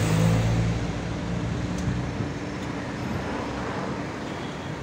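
Road traffic with a car passing close by: its engine hum is loudest at the start and fades over the first second or so, over a steady wash of traffic noise.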